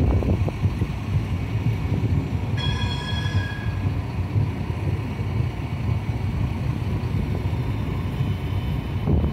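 CAF Urbos tram running slowly past with a steady low rumble. About three seconds in, a high, ringing tone with several pitches sounds for about a second.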